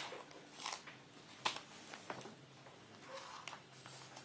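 Small knife trimming picture framer's tape on mat board: a few sharp clicks and short scrapes, with one louder click about a second and a half in.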